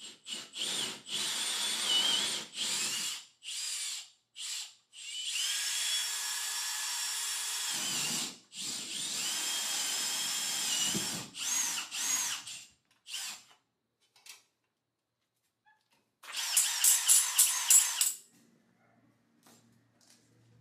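Power drill run in several short bursts, then two longer runs of a few seconds each, its motor whine rising as it spins up and falling as it stops. Near the end comes a rapid pulsing burst of about five beats a second.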